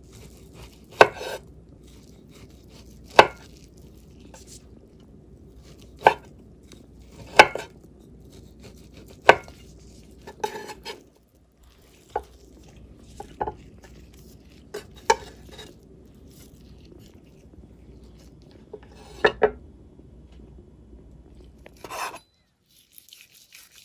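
Chef's knife slicing cooked beef meatballs on a wooden cutting board: a sharp knock of the blade hitting the board every second or two, sometimes two in quick succession, and near the end it moves on to a piece of boiled beef shank.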